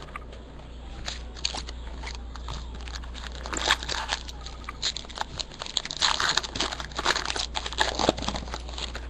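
Trading-card pack wrappers crinkling and rustling as the packs are handled and sorted, with irregular crackles that get busier in the second half.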